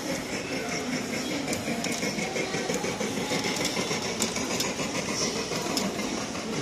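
A 5-inch gauge ride-on model train car running along its track: a steady mechanical running sound with scattered, irregular clicks from the wheels on the rails.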